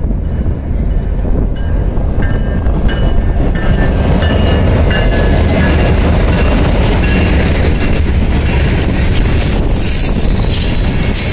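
Freight train passing close by: the leading EMD SD40-series diesel locomotives run past, then loaded covered hoppers and tank cars roll by with a steady run of wheel clicks over the rail joints.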